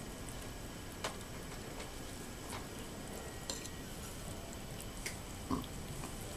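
Kittens eating soft weaning food from a paper plate, with a metal spoon pushing food around the plate: a few light, irregular clicks and taps, the strongest near the end, over a steady background hiss.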